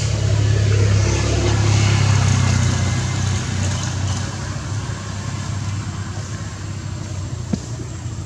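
A motor engine running steadily at a low pitch, swelling over the first few seconds and then easing off. A single short click comes near the end.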